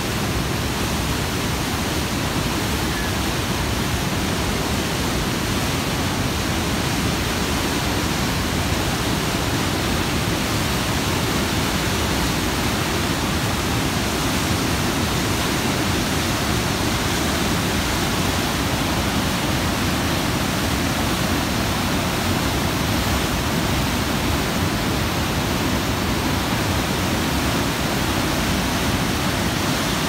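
Huka Falls' white water rushing through its narrow rock channel on the Waikato River: a steady, unbroken rush of churning rapids.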